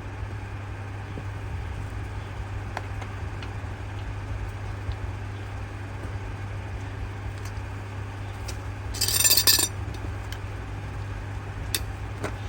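Steady low hum with a few faint clicks, and a brief metallic clink-and-clatter of tools about nine seconds in.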